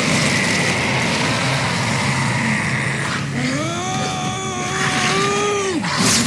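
Film sound effects: a dense rushing, rumbling effect as a demon transforms. About three seconds in comes a man's long yell that rises, holds and falls in pitch, ended by a sharp hit near the end.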